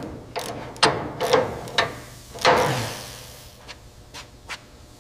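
A wrench knocking and clanking against the steel running-board bracket of a car: five sharp strikes in the first three seconds, then a few lighter taps.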